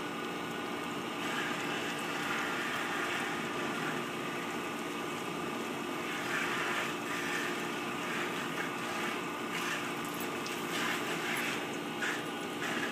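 A steady motor hum holding one even pitch, with some noise over it that rises briefly now and then.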